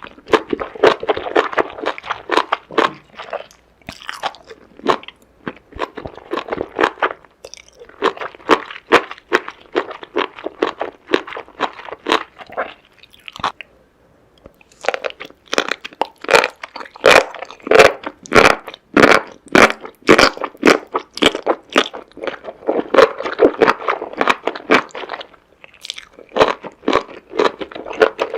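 Close-miked crunching and chewing of seafood in a mouth, with quick wet crackles one after another and a short pause about halfway through.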